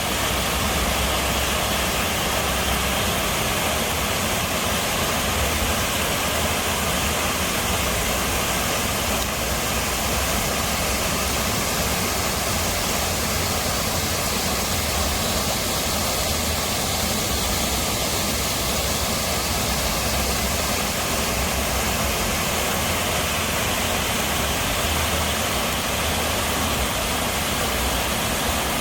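Steady rushing of a small waterfall, an even wash of falling water with a low rumble underneath.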